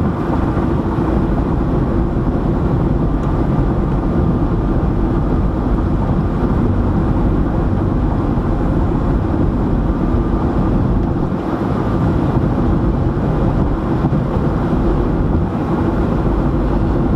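Steady road noise inside a car cruising at highway speed: tyre and engine noise with a faint steady hum, unchanging throughout.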